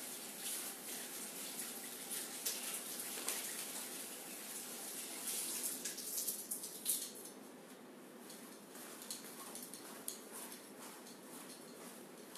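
Warm water running from a washbasin tap, splashing for about the first seven seconds, then the flow eases off and only a few small clicks and drips are left.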